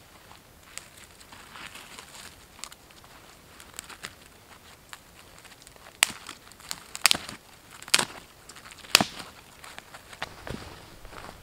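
Dry twigs rustling and being snapped off by gloved hands, with several sharp snaps in the second half.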